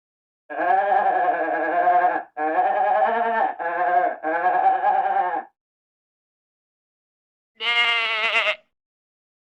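Goat bleating: a long, wavering bleat in four joined parts lasting about five seconds, then after a silent gap a shorter, higher bleat near the end.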